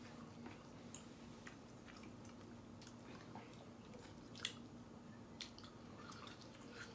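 Faint chewing and small mouth clicks from people eating, with one sharper click about four and a half seconds in, over a low steady hum.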